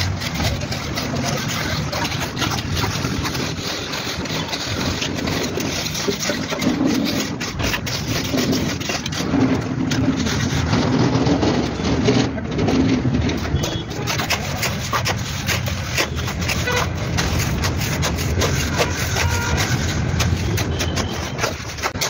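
An engine running steadily, with tools scraping in wet concrete over it.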